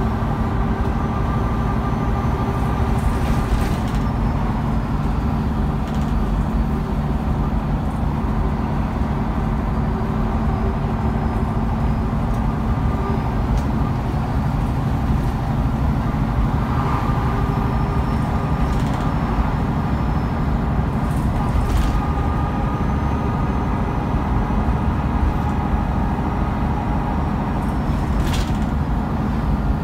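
Cabin noise of a MAN A23 articulated city bus under way, heard from inside the rear passenger section: a steady engine and road rumble with a constant drone, and a few brief sharp rattles from the body.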